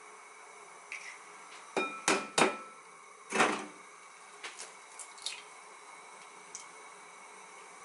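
An egg is tapped three times against the rim of a glass bowl, and the glass rings briefly. Then comes a louder, longer crackle as the shell is pulled open and the egg drops into the bowl. A few light clicks follow.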